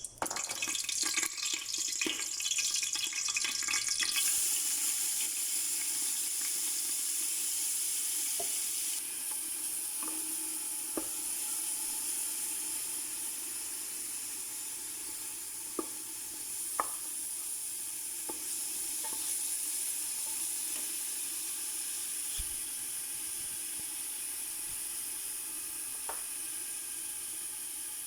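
Chopped onions frying in hot oil in a pot, sizzling steadily, loudest in the first few seconds and then easing a little, with a few light knocks, likely a spoon against the pot.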